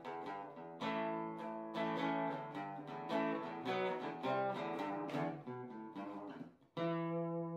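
Acoustic guitar music, picked chords in a steady flow, ending on a final chord struck a little before 7 seconds in and left to ring out.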